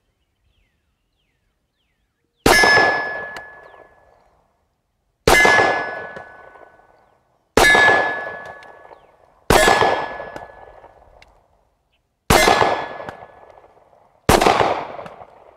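Six slow, evenly paced shots from a Kahr CW9 9mm pistol, each followed by the ringing of a struck steel target that fades over a second or two.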